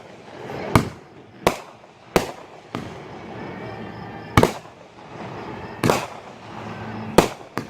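Aerial fireworks bursting: about seven sharp bangs at irregular intervals, roughly one a second.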